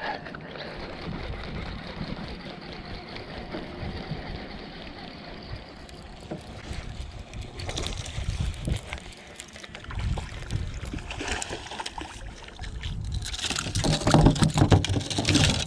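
Water splashing and sloshing around a kayak as a hooked bass is fought to the boat, loudest in a stretch of splashing near the end.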